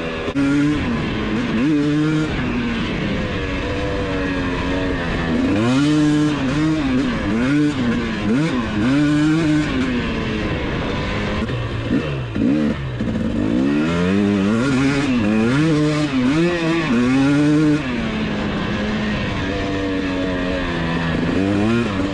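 Husqvarna TC250 single-cylinder two-stroke dirt bike engine being ridden, its pitch climbing and falling again and again as the throttle is opened and rolled off, holding steadier for a few seconds near the end.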